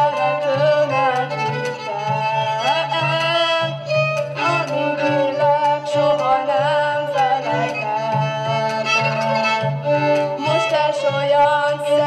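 Violin and gardon playing a slow Gyimes Hungarian dance tune (lassú magyaros). The violin carries a gliding, ornamented melody over the gardon's steady, repeated low beat.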